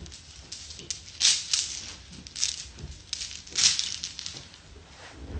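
Rustling and scraping handling noises close to the phone's microphone, in short bursts about once or twice a second.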